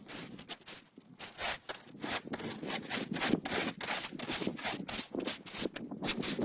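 Snow shovel scraping and pushing snow across pond ice in a quick run of uneven strokes, several a second.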